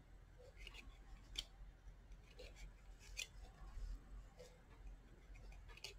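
Faint, irregular light clicks and scrapes of a loom hook lifting yarn loops over the pegs of a wooden knitting loom, the sharpest about one and a half and three seconds in.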